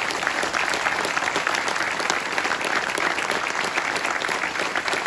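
Audience applauding: many hands clapping in a steady, dense stream of claps.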